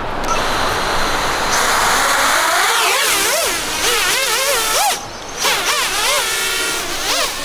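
FPV drone motors whining over a steady rushing noise. From about two and a half seconds in, their pitch swings up and down several times a second with the throttle.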